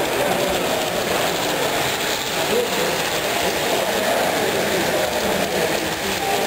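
Steady murmur of many people talking, with an OO gauge model diesel train running along the track.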